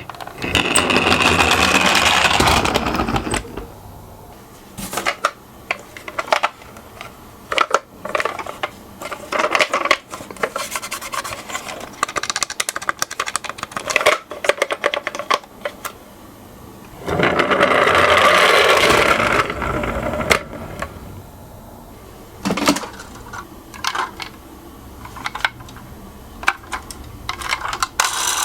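Miniature toy cars running down a slope twice, each run a few seconds of rattling wheel noise, with scattered clicks and knocks between the runs.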